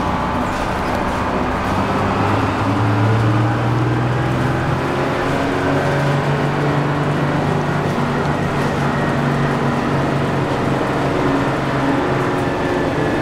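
Detroit Diesel 6-71 two-stroke diesel engine of a 1961 Crown Coach bus running under way, heard from inside the cab. The engine note climbs a few seconds in, steps up again about six seconds in, then holds steady.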